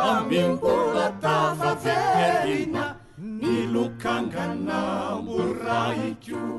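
Malagasy vocal group of men and women singing together in harmony, with a short break about halfway through.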